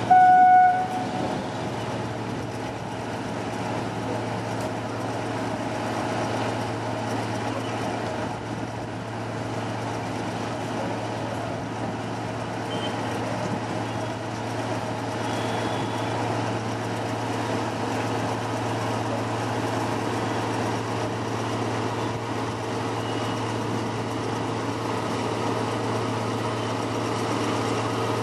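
A narrow-gauge diesel locomotive gives one short horn toot, then a diesel engine runs steadily while the train of coaches rolls past.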